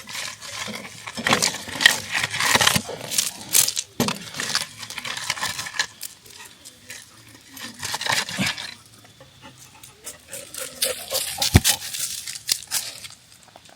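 Irregular clattering, scraping and knocking of hard objects being handled, in clusters, with one heavy low thud about eleven and a half seconds in.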